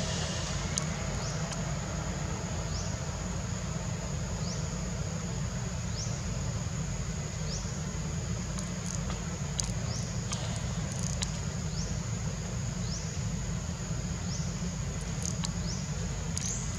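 Insects buzzing steadily on one high pitch, with a short rising chirp about every second and a half, over a steady low rumble of background noise.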